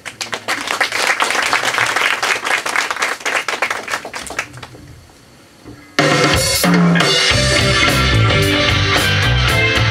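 A live rock band's drum kit playing a fast run of hits with cymbals that fades down, then the full band of electric guitars, bass and drums comes in loud and sudden about six seconds in.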